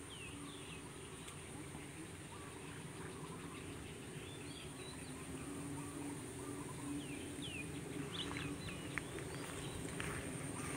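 Faint outdoor ambience: scattered short bird chirps over a steady high insect drone and a low hum.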